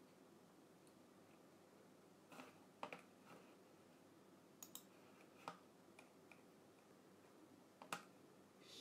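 Near silence: room tone with a few faint, sharp clicks and taps scattered through, the loudest near the end.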